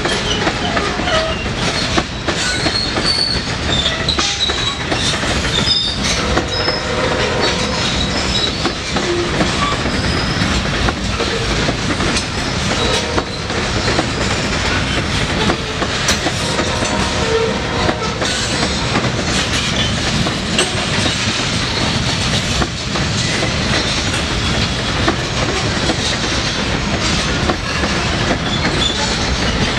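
Loaded freight train of covered hopper cars rolling past at speed: a steady loud rumble of steel wheels on rail, with clacking over rail joints and short intermittent wheel squeals.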